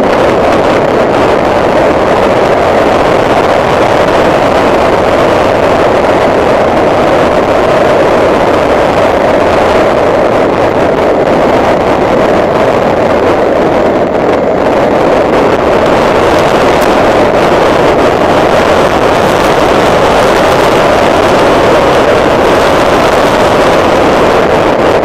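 Steady driving noise inside the cabin of a 2009 Honda Civic Si at speed on a race track: its four-cylinder engine mixed with heavy wind and road noise.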